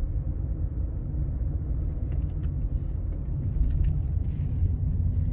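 Volkswagen Polo driving, with a steady low road and engine rumble and a few faint ticks about two to four seconds in. The suspension makes no rubbery creak, its worn silent blocks (rubber bushings) having been replaced.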